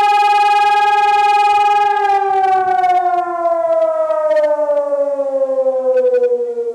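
Fire brigade siren on test, holding one steady tone for about two seconds, then sliding smoothly down in pitch as it winds down.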